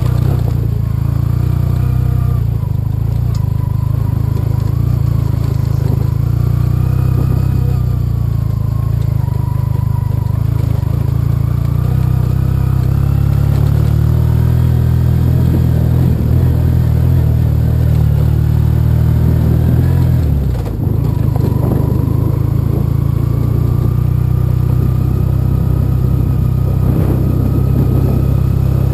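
Yamaha TDM 850 parallel-twin motorcycle engine running under way on a gravel track. The engine note dips briefly about twenty seconds in, then climbs slowly in pitch as the bike picks up speed.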